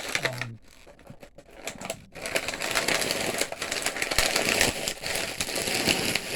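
Handling of toy packaging: dense crackling and rapid small clicks of plastic and cardboard being rustled, starting about two seconds in.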